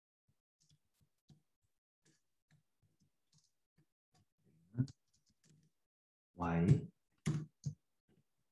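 Computer keyboard keys clicking irregularly as code is typed, mostly faint, with a louder keystroke about halfway through. Near the end there is a brief low murmur of voice, then two more clicks.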